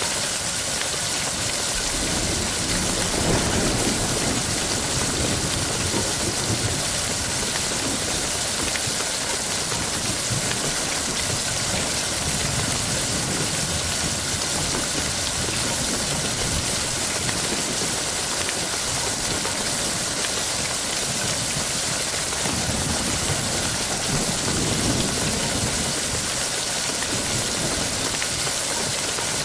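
Steady heavy rain, a dense even hiss of raindrops, with a low rumble swelling up about three seconds in and again near the end.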